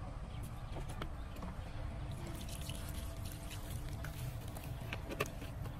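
Water from a plastic bottle splashing and dripping onto a potted plant's soil, in scattered small splashes and drips, over a low rumble of wind on the microphone.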